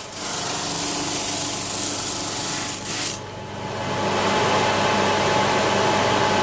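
Homemade drum thickness sander running, its sanding drum grinding across a plywood board fed through on the conveyor belt. A loud hiss for about three seconds, then a brief dip, then the machine runs on steadily with a hum.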